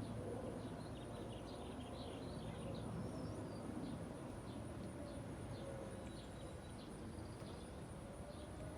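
Outdoor ambience: scattered short bird chirps and a steady high insect buzz over a low background rumble.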